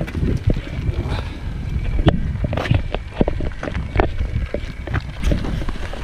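Wind buffeting the microphone as a heavy low rumble, over irregular knocks and rattles from walking feet and a battery-powered fishing trolley's wheels rolling over cracked concrete.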